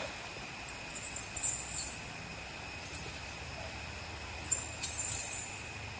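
A steady, high-pitched insect chorus, with the low rush of a shallow stream beneath it and a few faint clicks.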